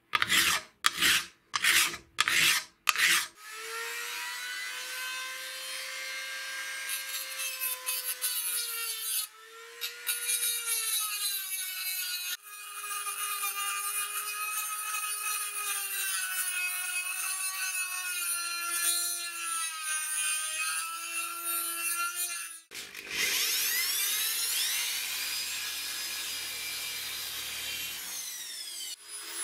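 A hand file rasping across a rusty metal plate in about seven strokes, two a second. Then a rotary tool with a grinding stone whines and grinds the metal for most of the time, its pitch wavering under load and stopping briefly twice. Near the end a power drill bores into the plate.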